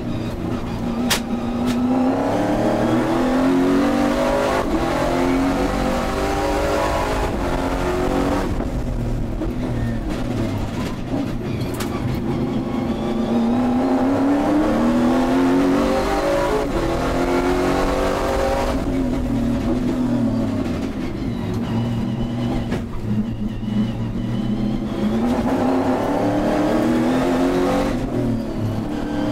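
V8 race car engine heard from the cockpit, accelerating hard with its pitch climbing in repeated steps as it shifts up through the gears. It eases off twice, about a third and two thirds of the way through, for braking into corners, then pulls hard again.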